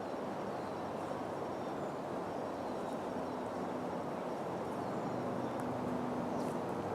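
Steady rushing of a fast mountain creek, with a few faint high chirps over it.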